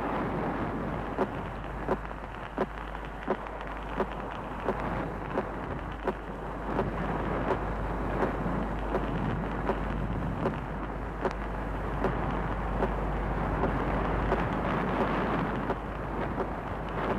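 Wind rushing over the microphone and skis hissing on the hard-packed snow of a fast downhill run: a steady rough rush that swells a little partway through. A sharp click comes about every 0.7 seconds.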